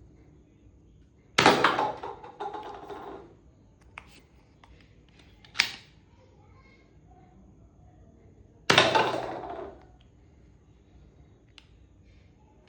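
Two loud shots from a Nerf-style toy blaster, each trailing off over about a second, with a sharp click between them.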